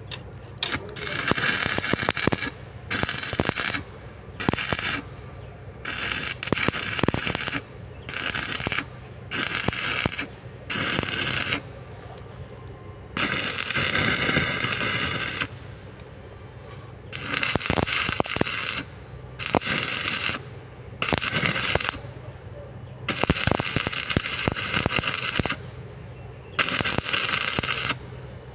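Electric arc welding in repeated short bursts: a loud crackling hiss for about one to two seconds at a time, stopping and restarting many times. A steady low hum runs underneath.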